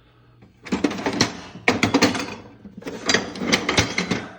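Steel hand tools clattering and rattling in a rollaway tool chest drawer, in three spells of about a second each, starting about a second in.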